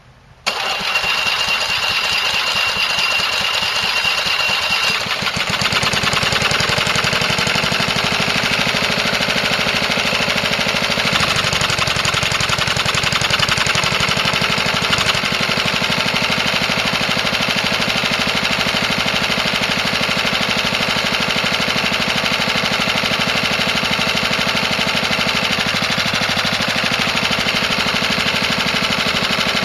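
Small lawn mower engine of a 1981 Whirlwind push mower starting about half a second in and running steadily on hydrogen (HHO) gas fed from a balloon into the intake, with the air cleaner off. A high whine sounds over it for the first few seconds. The gas supply is too short for full throttle.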